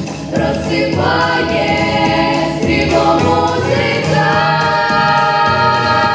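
A vocal ensemble sings a song in Ukrainian in unison or harmony over instrumental accompaniment. The voices hold long notes and move to a new pitch every second or two.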